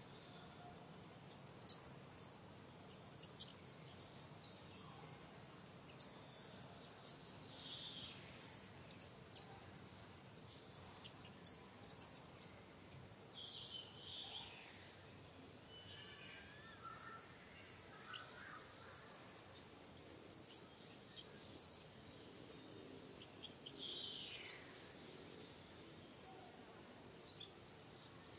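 Steady, faint high-pitched drone of insects in the forest, with scattered clicks and a few short, high calls that fall in pitch.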